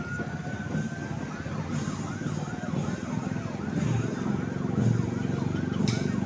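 A siren rises in pitch and holds, then from about a second and a half in switches to a rapid yelp, rising and falling about three times a second. Underneath runs the low sound of motorcycle engines passing along the road.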